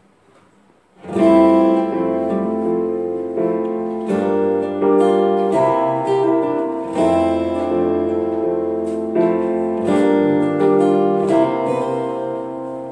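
A guitar intro begins about a second in: chords strummed and left to ring, changing every second or two, with a low bass line beneath, easing off in level near the end.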